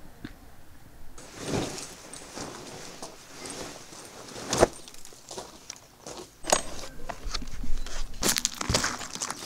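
Camping gear being handled and set down on gravel: rustling of bags and fabric, footsteps on the stones, and irregular small clinks and knocks, with a few sharper knocks near the middle and toward the end.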